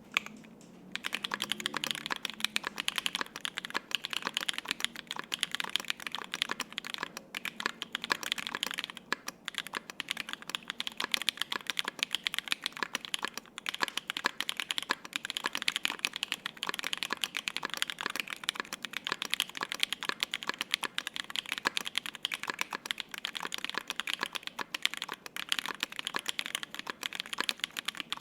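Continuous fast typing on a custom 60% gasket-mount mechanical keyboard (ai03 Polaris) with lubed Holy Panda tactile switches on a brass plate and GMK double-shot ABS keycaps, a dense stream of keystroke clacks that starts about a second in.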